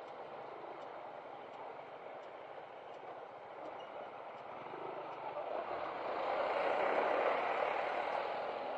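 Motorcycle riding noise at low speed: a steady rush of engine, wind and road noise that swells about six seconds in.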